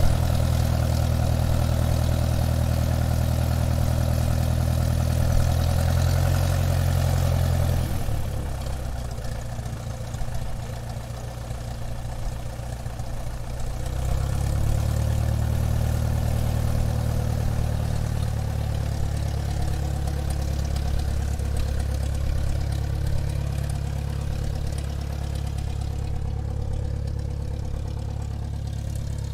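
Airplane taxiing: a steady low engine drone that eases off about eight seconds in and builds back up around fourteen seconds, then holds steady.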